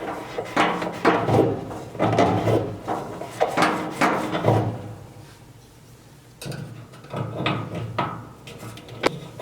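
Rag wiping the shaft of a dryer drum support wheel: a run of short rubbing strokes, about two a second, for the first four seconds or so. After a pause come a few lighter scrapes and clicks as the parts are handled.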